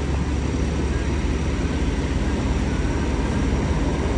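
Steady low engine rumble of a vehicle running close by, even and unchanging, with a faint constant hum above it.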